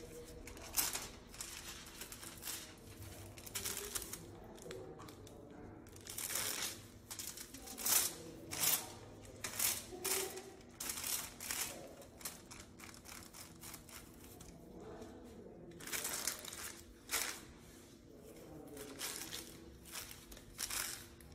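Sheets of hair-colouring foil crinkling and rustling in short, irregular bursts as they are laid under a section of hair, painted with product and folded.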